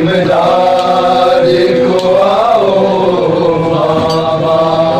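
Men's voices chanting a Muharram mourning lament (noha) together, long held notes that rise and fall slowly.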